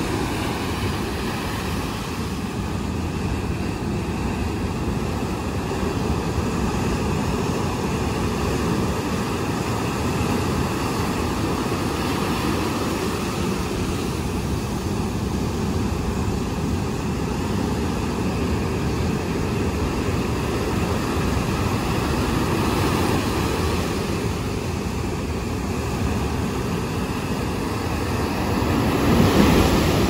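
Heavy surf on a sandy beach: a continuous wash of breaking waves and foaming whitewater, with a louder wave crash near the end.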